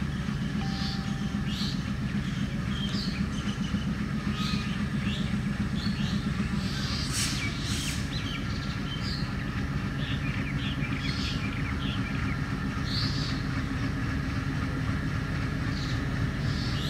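Diesel locomotive engine running with a steady low drone as it slowly approaches on the track. Short bird chirps sound on and off over the engine.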